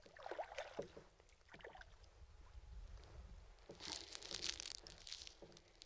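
Faint small noises aboard a drifting kayak: soft knocks and splashy handling sounds, with a brief crackling hiss about four seconds in, over a low wind rumble.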